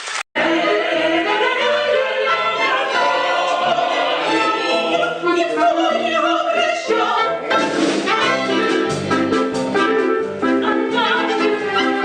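Operetta number: singing with orchestral accompaniment, with brass heard. A brief cut to silence comes just at the start, where one fragment is spliced to the next.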